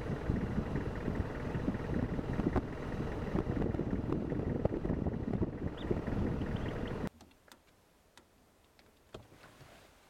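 Loud, steady low rumbling noise with irregular crackles, cutting off abruptly about seven seconds in; what follows is quiet, with a few faint clicks.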